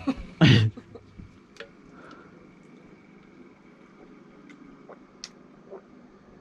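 One loud clunk about half a second in, then a quiet room with a few faint clicks and taps of kitchenware being handled around the pressure cooker.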